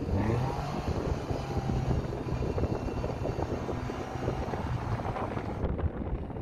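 Off-road vehicle engine running steadily under load while it tows another off-roader through deep snow on a rope, with wind on the microphone. A little before the end the sound cuts to a duller rumble.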